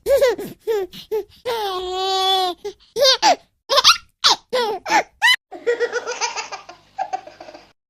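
A young child laughing and giggling in a string of short bursts, with one longer, drawn-out laugh about two seconds in.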